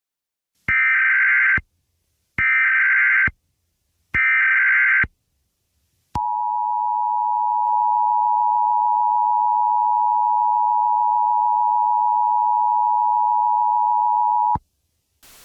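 Emergency Alert System header and attention tones: three short, buzzy data bursts of the SAME header, then the two-tone EAS attention signal, a steady two-note tone held for about eight seconds that cuts off sharply.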